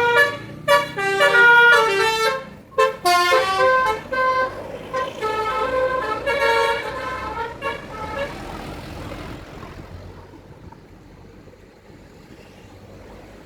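A bus's telolet horn, a multi-tone horn, playing a quick tune of short notes that jump in pitch, for about eight seconds. It then dies away, leaving a faint low traffic rumble.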